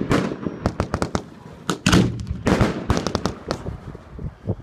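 Fireworks going off: a rapid string of sharp pops and crackles, with several louder bangs about two seconds in.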